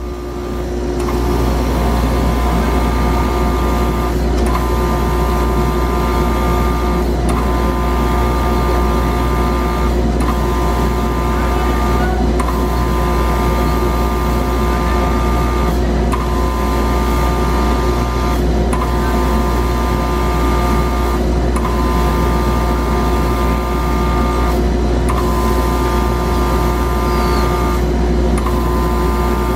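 Comco MicroBlaster air-abrasive pen blasting a fossil inside a ProCenter cabinet: a steady hiss over the cabinet's low hum, the blast cutting out briefly every two to four seconds.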